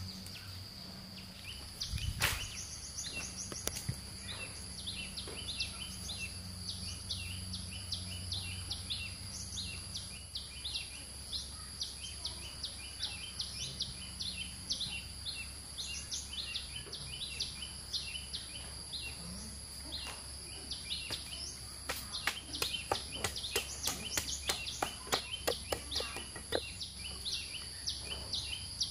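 Forest ambience: a steady high-pitched insect drone and a short chirping call repeated two to three times a second. Sharp knocks and clatter of cut wooden sticks being handled, one near the start and a dense run over the last several seconds as an armful of sticks is gathered.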